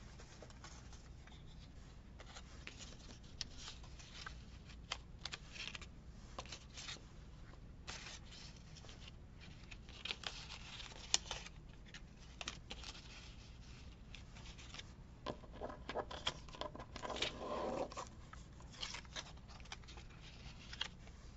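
Paper craft pieces being sorted and handled: faint, scattered rustles, light taps and short scrapes of paper. There are longer rustling stretches about halfway through and again a few seconds later, over a steady low hum.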